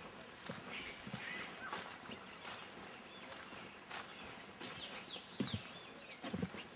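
Birds calling outdoors, with a quick run of four or five arching chirps about four and a half seconds in. Soft thumps of footsteps on a dirt path come near the end.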